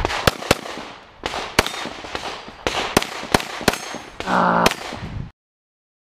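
Pistol shots from a red-dot pistol with a compensator, about a dozen in the first five seconds, fired in quick pairs and singles. A brief buzzing tone sounds near the end, and the sound cuts off suddenly a little after five seconds.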